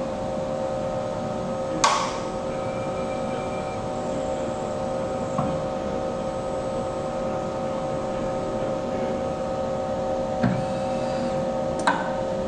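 Steady hum of production-line machinery, holding several fixed tones, broken by a few sharp clicks and knocks: the loudest about two seconds in, another near the end.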